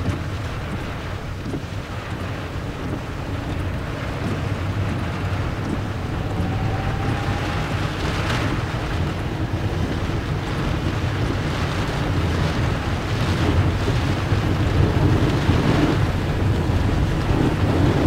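Typhoon wind buffeting a moving car, heard inside the cabin, over a steady low rumble of road and engine noise. Gusts of wind-driven rain and spray hit the car a little after the middle and again near the end, growing louder.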